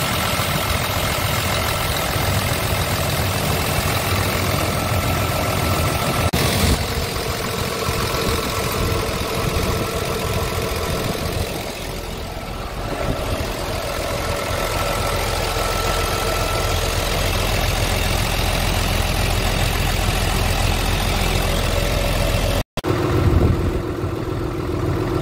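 Scania R 450's 13-litre inline-six diesel idling steadily, heard up close at the open engine bay with the cab tilted forward. The sound drops out for a moment near the end.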